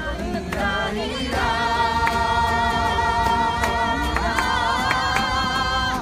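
A small group of voices singing together as a choir, holding one long note from about a second in until about four seconds, then moving on to the next notes, with acoustic guitar strums behind.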